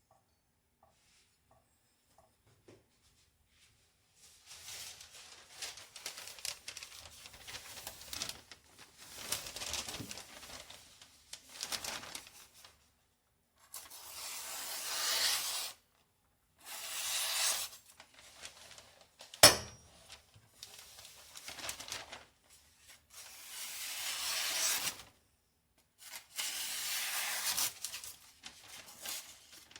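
Kitchen knife being sharpened on a wet whetstone: spells of scraping strokes, a few seconds each, with short pauses between. One sharp click about two-thirds through is the loudest sound.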